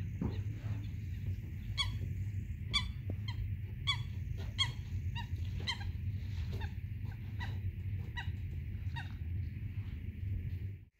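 A bird calling over and over in a series of about a dozen short honk-like calls, roughly one every two-thirds of a second, over a steady low rumble. The sound cuts off suddenly near the end.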